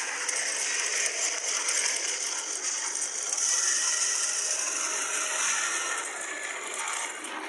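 Chainsaw running with a steady, dense rattle of the chain, thin and high with little low end, easing slightly near the end.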